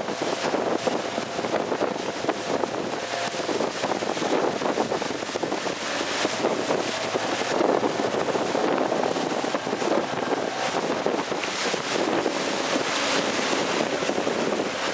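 Wind buffeting the microphone in gusts over the rush of choppy water and spray.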